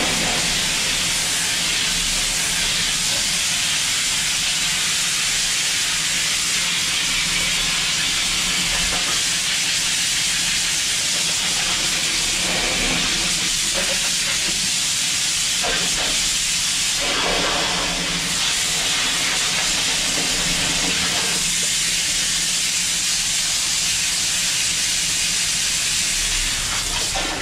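High-pressure water lance spraying a steady, hissing jet of water onto the concrete benching and pipe inside a manhole, with the splash changing as the jet is moved over the surfaces.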